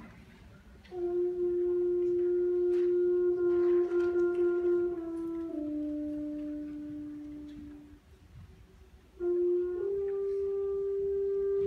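Wind instruments of a school concert band playing a slow, quiet passage as one line of long held notes. The first note comes in about a second in, steps down to a lower note and fades away. After a short pause, a new phrase enters on a held note that steps up.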